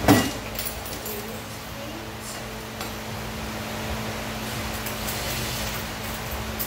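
Aluminium-framed glass solar panel set down on a plastic tool cart with a knock right at the start, then a few light clinks of small metal mounting hardware being handled, over a steady low hum.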